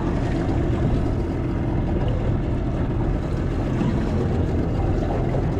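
Steady low rumble aboard a small fishing boat at sea.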